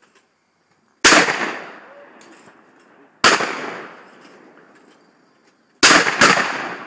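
Four shotgun shots at clay pigeons, each followed by a fading echo: one about a second in, another about two seconds later, then a quick pair half a second apart near the end.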